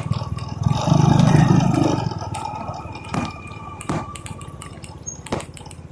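Motorcycle engine running in street traffic, swelling louder for about a second near the start and then easing off, with scattered clicks and knocks.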